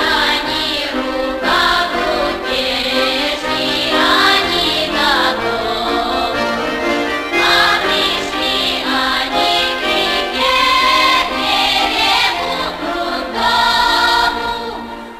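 Russian folk music: a bayan (button accordion) trio playing with a women's folk choir in the interlude between the soloists' verses.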